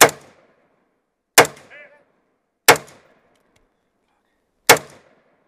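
Four shots from an AR-style rifle fired close to the microphone, unevenly spaced over about five seconds. Each is a sharp crack with a short echo, and a faint ringing follows a moment after the second shot.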